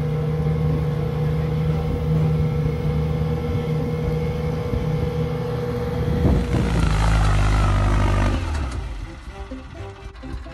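A boat engine runs steadily on the water. About six seconds in, a loud rushing noise takes over, and near the end the sound drops away.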